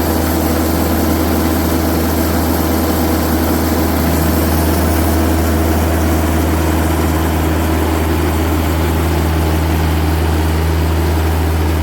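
Band sawmill's engine running steadily, a loud low hum with no breaks.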